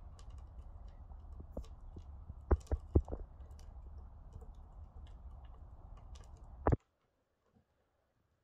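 Scattered light clicks and taps, with a few sharper knocks, from hands working walnut-filled dough on a wooden board, over a low steady rumble. The sound cuts off abruptly near the end.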